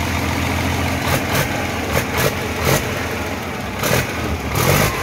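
Caterpillar 3306 DI inline-six diesel engine running on a stand, its first run after sitting for 15 years, with the valve cover off. It runs steadily at first; from about a second in it turns uneven, broken by a series of sharp, loud bursts.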